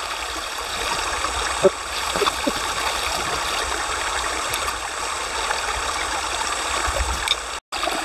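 Steady rush of running water, with a couple of faint clicks about two seconds in.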